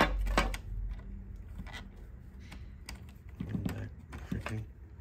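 Sharp plastic clicks and light rattling as a wire harness and its connector are handled and pushed into a socket inside an HP Color Laser MFP 178nw printer, with the loudest clicks right at the start and another cluster about three and a half seconds in.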